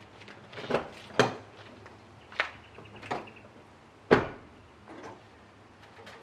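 A series of about six irregular knocks and clunks, the loudest about four seconds in.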